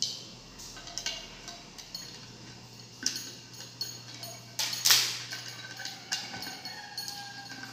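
Small clicks and taps of a string of Christmas fairy lights being pushed through a hole in a jar lid, the little bulbs and wire knocking against the lid and the jar, with one louder knock about five seconds in.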